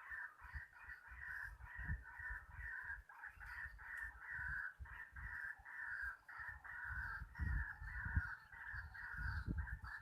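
White-breasted waterhens calling: harsh, croaking calls repeated a few times a second without a break, over irregular low thumps of movement and handling close to the microphone.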